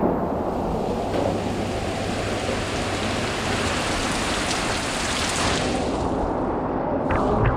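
Heavy rain pouring down steadily, a dense even hiss. A few sharp taps come in near the end.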